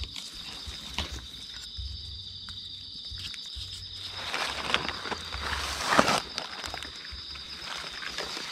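Footsteps and rustling on the forest floor, a few scattered steps, with the loudest crunch about six seconds in. Behind them runs a steady, high-pitched insect drone.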